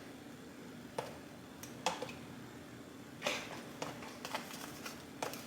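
Faint, scattered light clicks and a soft scrape about three seconds in: tongs tapping against a bowl while asparagus is turned in flour. A faint steady low hum runs beneath.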